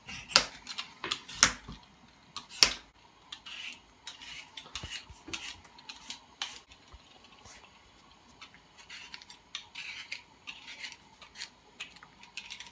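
Hand-held Y-shaped potato peeler scraping the skin off raw potatoes in repeated short strokes over a plastic chopping board. There are three sharp knocks in the first three seconds.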